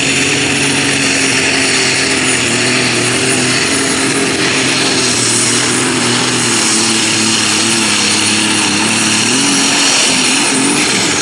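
John Deere super stock pulling tractor under full load pulling the sled: the engine runs at high revs with a loud, steady noise and a high whine over it. The whine falls away near the end as the pull winds down.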